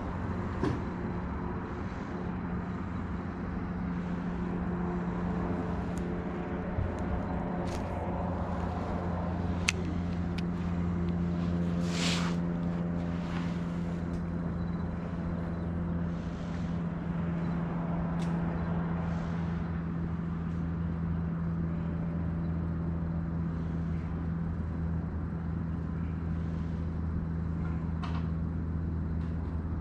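Boat engine idling steadily, a low even hum, with a few faint clicks and a short hiss about twelve seconds in.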